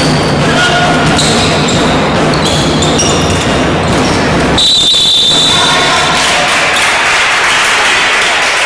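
Basketball game play in a sports hall: a basketball bouncing on the wooden floor, short high squeaks of shoes and players' voices over a steady noise from the hall.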